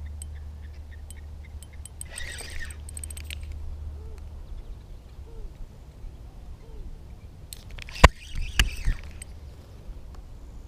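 Noise of an angler playing a hooked barbel from the bank: a steady low rumble, a short burst of scratchy clicking, and a sharp knock about eight seconds in followed by a few softer knocks and rustles.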